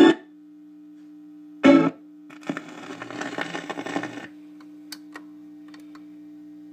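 1956 RCA 7HF-45 45-rpm record changer cycling after the music cuts off: a steady mains hum, a short loud burst about two seconds in, then a couple of seconds of scraping and clicking from the changer mechanism and tone arm, and a few light clicks.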